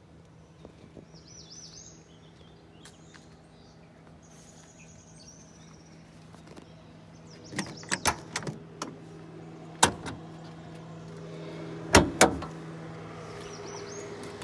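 Side door of a 1993 Chevy G20 van being opened: the handle and latch click several times, then there is a sharp click and two loud clunks close together. Birds chirp faintly in the first few seconds, and a steady hum comes up near the end.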